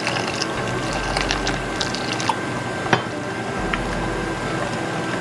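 Wire whisk beating a thick besan-flour batter in a stainless steel bowl: a busy rattle of small clicks as the wires strike and scrape the steel, with one sharper click about three seconds in.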